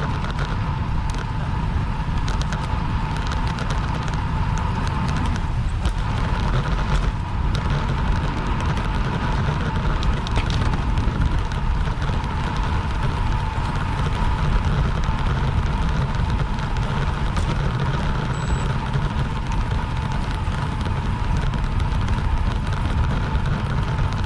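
Wind rushing over an action camera's microphone on a racing bicycle at speed, with road and tyre rumble underneath and a few scattered clicks.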